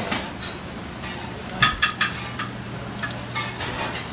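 Metal pans and utensils clinking a few times, with a cluster of sharp rings about one and a half seconds in and another near the end, over the steady low hum and clatter of a busy restaurant kitchen.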